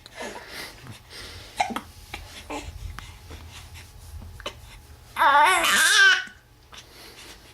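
Baby with the hiccups fussing: a few short, faint sounds in the first half, then one loud, wavering complaining cry about five seconds in.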